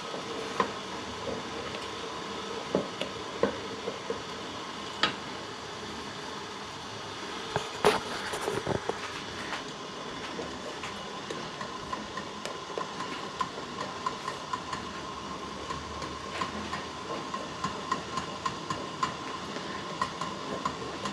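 Wooden spoon stirring carp roe in a stainless steel bowl set over a pot of boiling water, with a steady hiss from the steaming water beneath. The spoon knocks and scrapes on the bowl now and then, a louder clatter about eight seconds in and quicker small ticks near the end.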